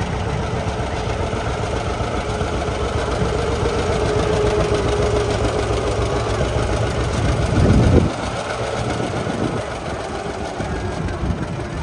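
Vehicle engine running at idle, a steady low rumble. About seven and a half seconds in, a louder low rumble swells briefly and cuts off sharply.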